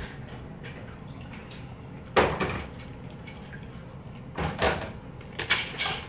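Wooden chopsticks and a styrofoam takeaway box being handled while eating sushi: a sharp knock about two seconds in, the loudest, then a few shorter clicks and knocks near the end.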